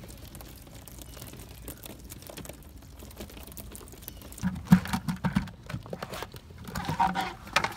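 Small baitfish freshly dumped from a cast net flopping on a boat's fiberglass deck: a rapid, irregular patter of light taps, with a few heavier thumps about halfway through.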